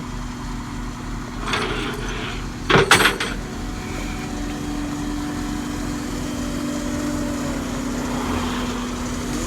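Vehicle engine idling with a steady low hum. About a second and a half in there is a rustling burst, and around three seconds in a louder clatter of sharp knocks.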